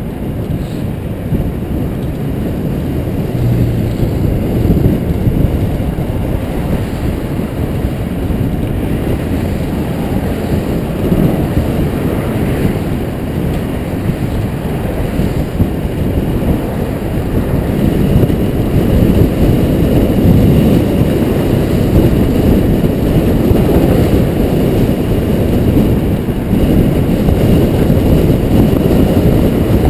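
Wind buffeting the microphone of a bicycle-mounted camera on a fast downhill ride: a loud, rough rushing with some tyre-on-road noise, growing louder a little past halfway as speed builds.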